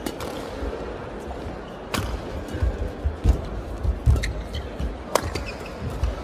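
Badminton rally: sharp cracks of racket strings striking the shuttlecock every second or two, with players' footsteps thudding and shoes squeaking briefly on the court.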